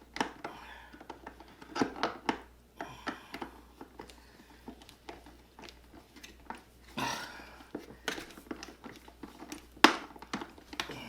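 Plastic parts and bolts of an electric pressure washer being handled and fitted during assembly: scattered clicks and knocks, with one sharp knock near the end.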